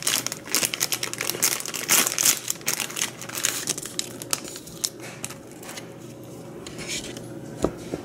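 Thin plastic snack bag crinkling as it is handled and shaken to tip bite-size daifuku onto a plate. The crackling is dense for about five seconds, then thins out, and there is a single sharp click near the end.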